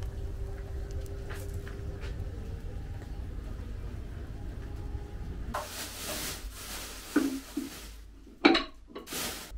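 A steady low rumble, then a rustle of plastic and a few sharp wooden knocks from a rolling pin handled on a wooden dough board. The loudest knock comes about a second before the end.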